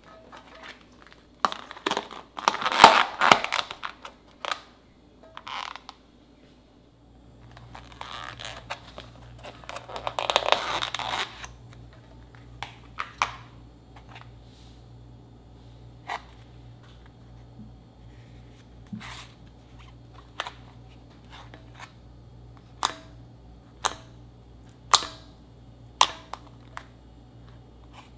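Slime handled in a plastic tub: two stretches of loud crackling, about two seconds in and about ten seconds in. After that come short, sharp pops, roughly one a second in the second half, as fingers poke into the slime.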